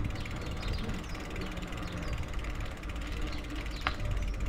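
Bicycle freewheel ticking rapidly as the bike coasts, over a steady low rumble, with one sharp click about four seconds in.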